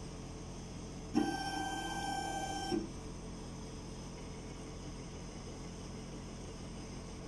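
Sirona inLab MC XL milling unit's stepper motor driving an axis during auto-calibration: a steady whine lasting about a second and a half that starts and stops abruptly, over a constant low hum.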